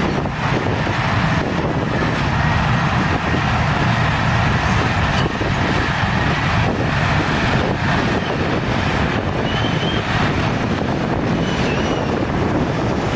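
Heavy diesel earthmoving machinery running steadily with a constant low rumble.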